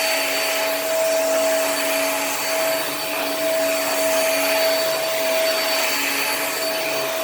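Hoover React Professional Pet upright vacuum running on carpet: a steady motor whine over the rush of air, its level rising and falling gently as it is pushed through a few passes.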